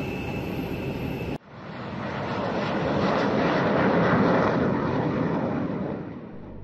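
Steady aircraft noise with a thin high whine, cut off about a second and a half in; then BAE Hawk 100/200 single-turbofan jets passing low overhead, their jet noise swelling to a peak midway and fading away.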